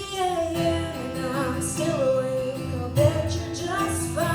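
Live music: a woman singing a country-pop ballad over acoustic guitar.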